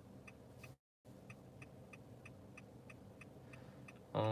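Car turn-signal indicator ticking steadily, about three ticks a second, over a low steady cabin hum. The sound drops out briefly about a second in, and a man gives a short hummed "mm" near the end.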